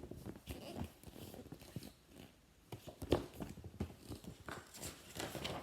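Faint rustling with scattered light taps and clicks from a paper picture book being handled, its page being turned.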